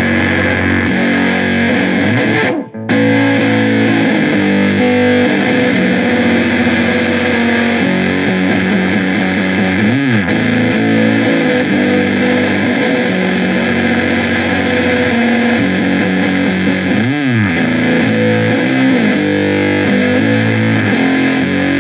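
Peavey T-60 electric guitar played through an Electro-Harmonix Lizard Queen octave fuzz pedal into a Laney AOR 50-watt amp and a Marshall 4x12 cabinet: heavily distorted, sustained chords. There is a brief stop about three seconds in, and slides down and back up the neck about halfway through and again near three-quarters of the way through.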